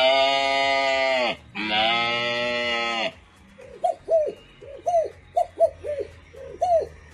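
A man imitating animals with his voice: two long goat-like bleats, each dropping in pitch as it ends, then a quick run of short dove-like coos.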